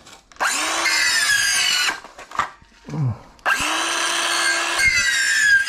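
Battery-powered circular saw cutting through a green bamboo pole in two runs. The motor spins up and cuts for about a second and a half, stops, then starts again and cuts for about two seconds more.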